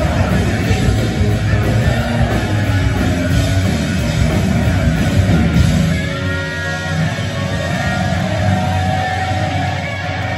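Live hard-rock band playing loud through a concert PA: electric guitars over drums and bass guitar. About six seconds in the sound thins and drops a little, leaving the guitar more to the fore.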